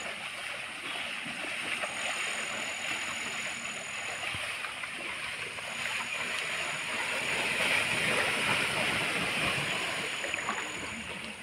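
Floodwater splashing and sloshing around bulls' legs as they wade and shove at each other: a steady, noisy rush with many small splashes, swelling a little midway.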